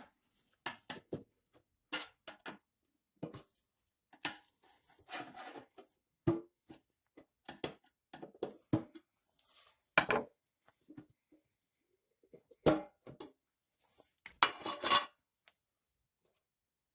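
Small metal carburetor parts from a Johnson outboard being handled and cleaned: scattered sharp clinks and knocks as pieces are picked up and set down, with a short rattling scrape near the end.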